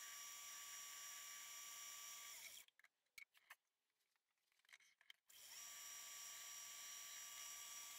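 Myford ML7 lathe running with a steady hum, chuck spinning. It stops about two and a half seconds in, leaving near silence with a few faint clicks, then runs again from about five and a half seconds in.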